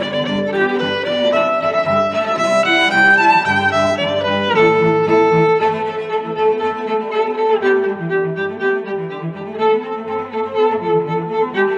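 Instrumental background music, a melody of quickly changing notes over a steady accompaniment.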